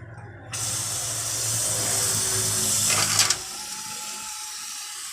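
A small motor hums steadily, and a loud hiss joins it suddenly about half a second in. Both stop together a little after three seconds, with a couple of clicks.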